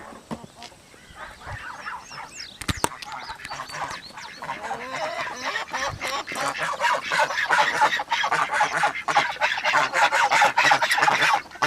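A mixed flock of geese and other poultry calling: a few calls at first, growing denser and louder from about four seconds in.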